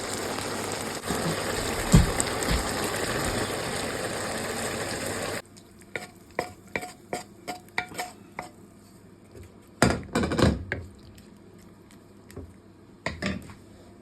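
Food frying in a pan with a steady sizzle and a single knock; the sizzle cuts off suddenly about five seconds in. A string of light clinks of a utensil against a pot or pan follows, with a couple of louder clattering bursts later on.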